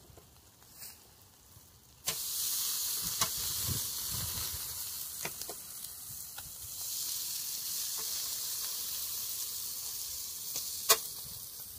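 Meat sizzling on a charcoal grill. The hiss sets in suddenly about two seconds in, and metal tongs click against the wire grate several times as the pieces are turned. A sharp click near the end is the loudest sound.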